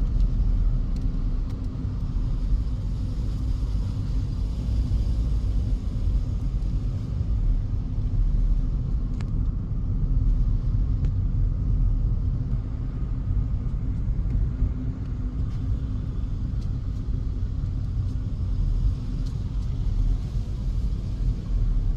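Steady low rumble of a vehicle driving along a road, with no pauses or changes in pace.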